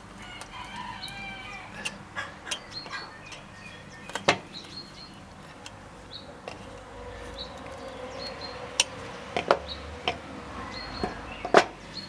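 Chickens clucking in the background, with a few sharp clicks and knocks from hand tools at the wooden workbench.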